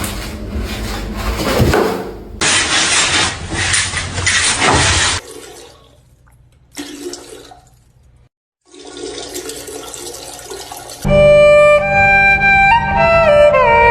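Loud, even rushing noise for about five seconds, cutting off abruptly. After a quiet stretch, music with a melody of stepped, held notes starts near the end.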